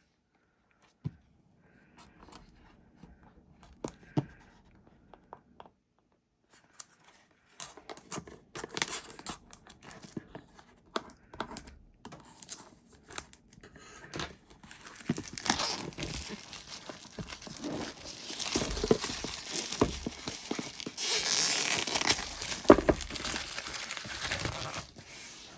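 Plastic shrink-wrap being torn off a cardboard jigsaw puzzle box and crumpled, with a few light taps and handling clicks at first, then crinkling that gets denser and louder over the second half.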